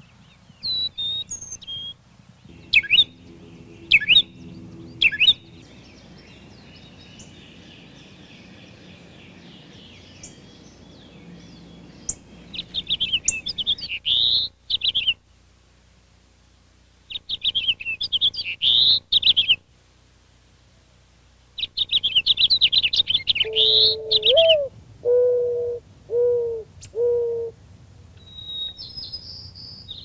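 Backyard birdsong. First come a few short, sharp high calls. Then three long bursts of fast, jumbled warbling song, typical of a house finch. Near the end of the warbling, a mourning dove coos low: one longer rising note, then three shorter hoos. A thin rising whistle follows.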